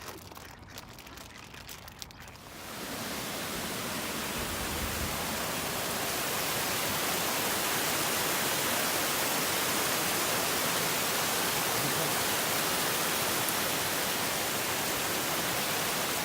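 A steady, even rushing noise that swells in about three seconds in and then holds, after a quieter start with a few faint clicks.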